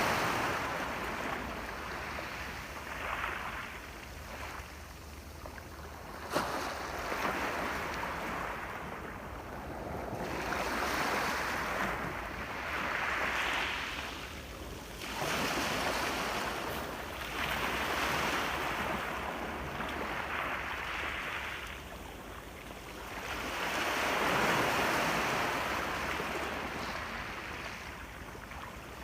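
Sea waves breaking and washing ashore, swelling and fading every few seconds. A brief sharp click about six seconds in.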